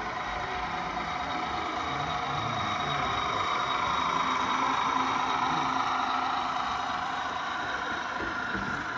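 A vehicle passing: a steady rushing noise that swells to a peak about halfway through and then eases off, with a faint low hum while it is loudest.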